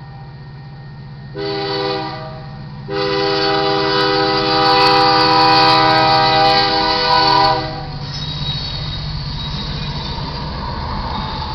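Diesel locomotive air horn, lead unit an EMD SD70M: a short blast about a second and a half in, then a long blast held for nearly five seconds, the closing short-long of the grade-crossing signal. When the horn stops, the locomotives and train wheels rumble steadily past at the crossing.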